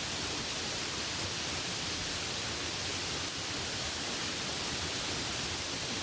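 Light rain falling steadily: an even hiss with no distinct drops or other events.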